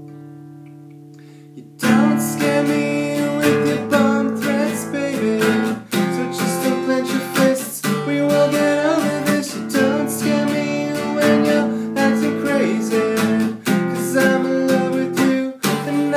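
Acoustic guitar strumming chords in a steady rhythm. A chord rings out and fades at first, and the strumming starts about two seconds in.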